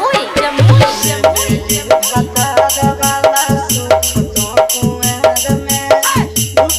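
Dance music with a fast steady beat, shaker-like percussion, a bass line and a melodic line over it.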